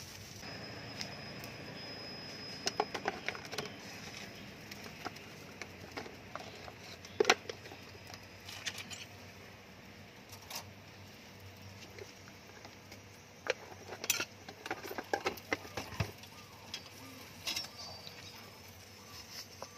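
Scattered light clicks and clinks of food preparation at a stainless-steel counter: a spoon scooping seasonings from plastic tubs, with a sharper knock about seven seconds in.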